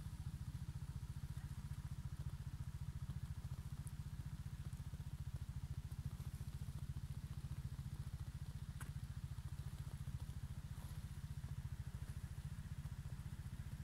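Beta Alp 200's single-cylinder four-stroke engine idling steadily, an even low pulsing.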